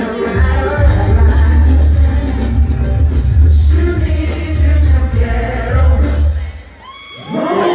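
Live band music played loud over a hall PA, with a heavy bass line and singing. About six and a half seconds in the music drops away briefly, then a rising sweep leads into held chords near the end.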